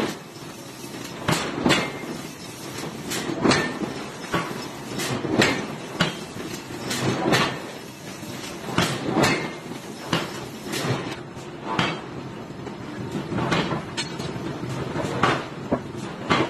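Forging hammer striking a red-hot iron workpiece on the anvil in repeated heavy blows, irregularly spaced at about one or two a second.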